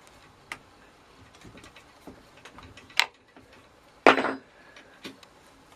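Scattered metal clicks and clinks from handling a bolt and the steel parts of a portable bandsaw stand, with a sharp clank about three seconds in and a louder, briefly ringing clank about four seconds in.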